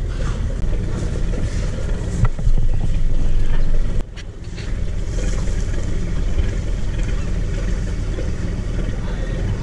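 A passenger ferry's engine running with a steady low rumble. A louder stretch cuts off sharply about four seconds in.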